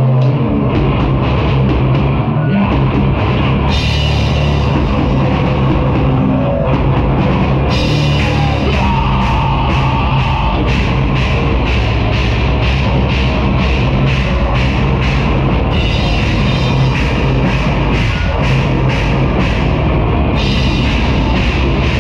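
Live rock band playing loud and heavy, with electric guitars, bass and a full drum kit. From about eight seconds in, a cymbal is struck steadily, about twice a second.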